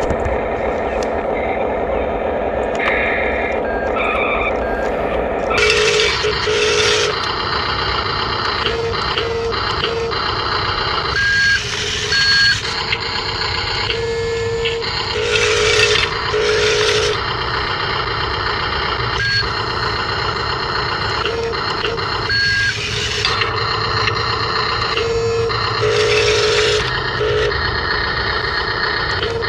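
Sound modules of toy RC construction vehicles playing electronic effects: a steady pitched engine hum for the first few seconds, then many short repeated beeps and tones like reversing alarms over a mechanical background.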